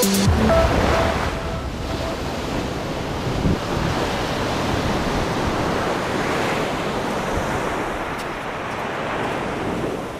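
Small surf washing up and hissing on a sandy beach, with wind buffeting the microphone.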